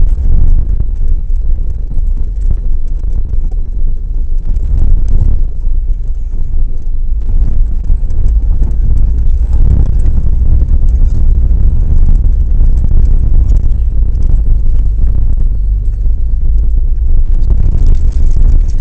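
Steady low rumble and road noise of a vehicle towing along a rough dirt track, with frequent rattles and knocks, picked up by a camera mounted on the tow bar.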